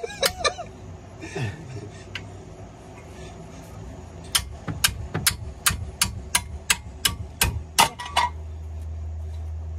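Ratchet wrench extended with a long pipe clicking in an even run, about three clicks a second, as it is worked back and forth on a seized rear coilover bolt. A steady low hum comes in near the end.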